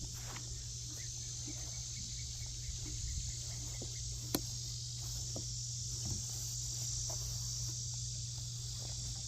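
Steady high-pitched insect chorus trilling without a break, with scattered light clicks and knocks and one sharper click about four seconds in.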